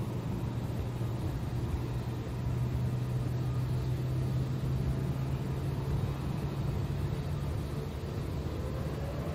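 Jet airliner taxiing: a steady low engine rumble with a hum, and a whine that starts rising near the end.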